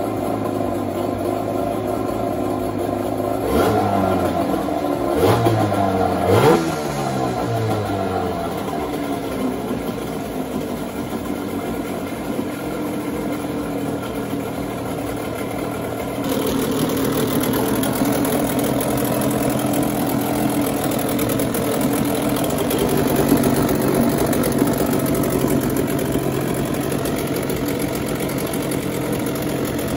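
Hangkai 12hp two-stroke outboard engine running, blipped up and down in revs a few times early on, then settling back to a steady run. A higher hiss joins about halfway through.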